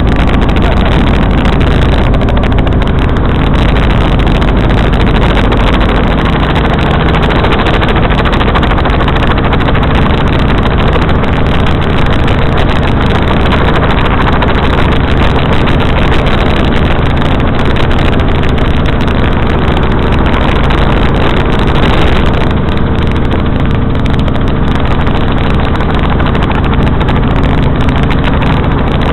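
Helicopter in flight: a loud, steady drone of engine and rotor noise that holds unchanged throughout.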